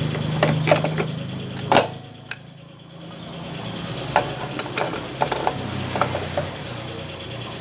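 Scattered metal clicks and clunks from a Suzuki Nex scooter's CVT as the drive belt is worked onto the rear driven pulley and clutch assembly by hand. A low steady hum runs underneath and dips for about a second around two seconds in.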